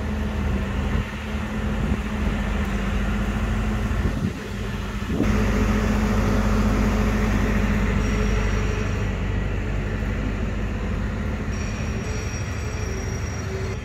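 Steady low mechanical drone of a running fairground carousel and its machinery. It jumps louder about five seconds in.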